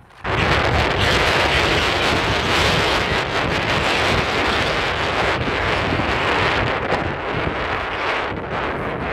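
Strong wind buffeting the microphone: a loud, steady rushing with gusty rumble underneath.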